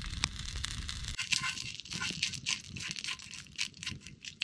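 Campfire crackling under a pan. About a second in, this gives way to a wooden stick scraping and stirring in a small metal pan, a run of short irregular scrapes.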